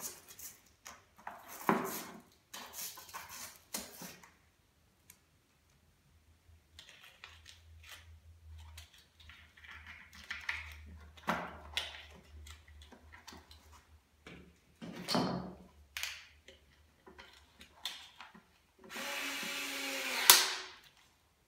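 Hard plastic cover knocking and clicking as it is pushed back into place over the stroller's front fork. About 19 s in, a small cordless electric screwdriver runs for about a second and a half, driving a screw into the cover, and stops with a sharp click.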